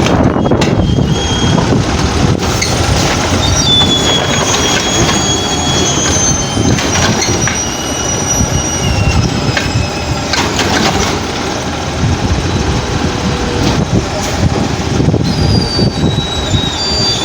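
Garbage truck running and working, its engine and machinery noise steady throughout, with short high-pitched squeals and a few knocks over it.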